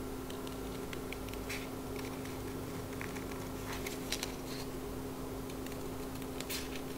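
Scissors cutting through folded paper, a few short crisp snips spaced a second or two apart, over a steady low hum.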